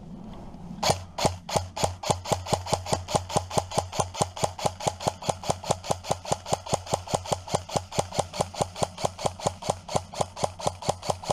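Airsoft rifle firing a long, steady string of shots, about five a second, starting about a second in.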